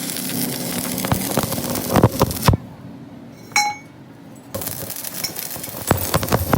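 Metal clinking and knocking, with a few louder strikes about two seconds in, a brief lull with a single short metallic ring, then more clatter.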